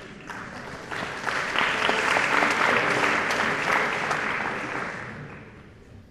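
Audience applauding, building up about a second in, at its fullest two to four seconds in, then dying away near the end.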